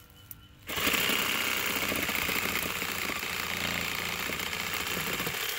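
Power saw running steadily as it cuts through the trunk of a small tree, starting about a second in and cutting off just before the end.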